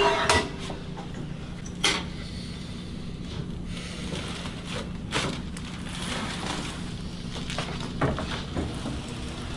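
A patient shifting on a chiropractic table: a few sharp knocks or clicks, one near two seconds in, one around five and one about eight, over a steady low hum.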